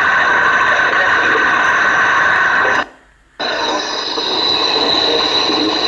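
Loud, steady static hiss from a psychophony (EVP) recording. It cuts out for about half a second around three seconds in, then comes back with a thin steady whistle above it.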